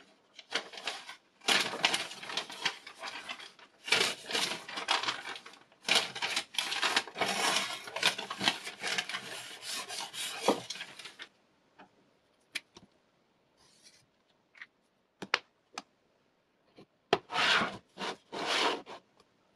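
Paper wrapping rustling and crinkling as it is pulled off a knife blade, for about the first eleven seconds. After that come scattered light clicks and knocks of things handled on a tabletop, with one more short rustle near the end.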